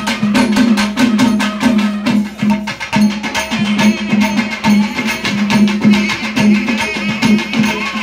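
Live traditional temple-festival music: fast, steady drum and clapper strokes over a pulsing low drum tone. A wavering high pipe melody rises over the top in the second half.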